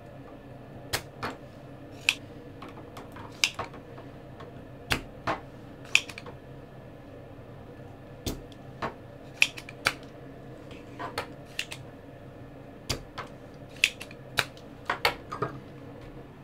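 Spring-loaded desoldering pump (solder sucker) cocked and fired again and again to suck molten solder out of a circuit-board mounting hole: about twenty sharp clicks, irregularly spaced, many in quick pairs.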